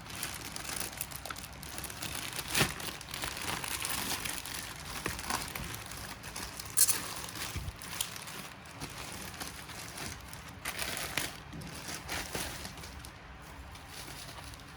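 Packaging being handled and opened: rustling and crinkling with scattered clicks and knocks. The loudest knocks come about two and a half and seven seconds in, and the handling quietens near the end.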